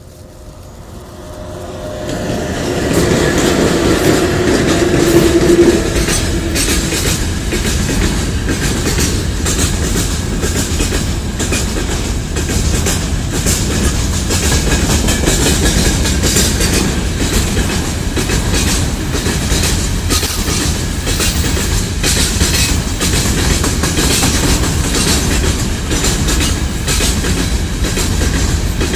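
Freight train rolling past, its wheels clattering rhythmically over the rail joints. The noise swells over the first few seconds as the train arrives, then runs on steadily.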